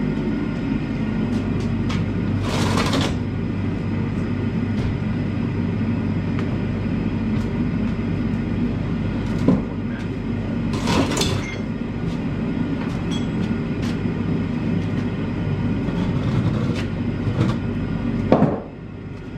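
Steady mechanical drone of a blacksmith's forge furnace running, with two short loud rushing noises about three seconds in and again about eleven seconds in. The drone drops away shortly before the end.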